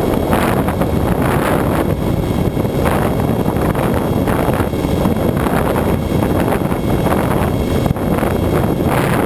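Loud, steady wind rush buffeting the microphone of the camera on a Bixler electric RC plane in flight, with the plane's electric motor and propeller running under it.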